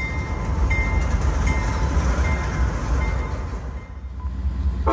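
Freight train rolling past on the rails: a steady, loud rumble of the cars. A locomotive horn chord starts right at the end.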